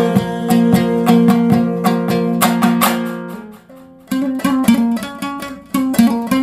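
Instrumental break of a Hazaragi dambura song: rapid plucked and strummed dambura strokes over held notes, without singing. The playing falls away briefly a little past halfway, then comes back in.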